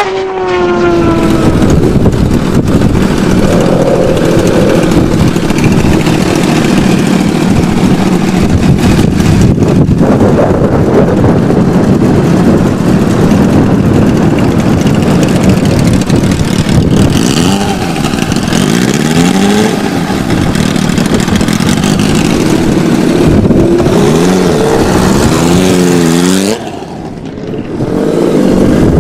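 Kawasaki Ninja H2R's supercharged inline-four engine running loud at high revs. In the second half the revs swing up and down several times, and near the end the sound briefly drops.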